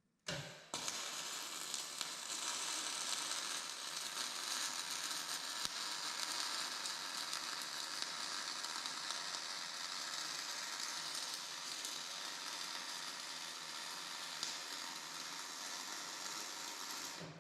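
Electric welding arc running a weld bead on a steel feed roller arm: a steady crackling sizzle that starts abruptly with a brief strike and a restart, then runs unbroken until the arc is broken off just before the end.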